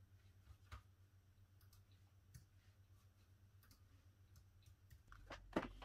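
Faint, scattered light clicks and taps of small tools and parts being handled during a phone repair, with a few louder sharp clicks near the end over a low steady hum.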